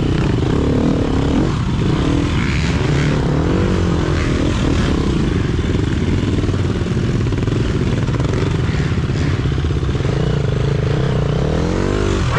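Trail motorcycle engine running hard, its revs rising and falling continuously as it is ridden.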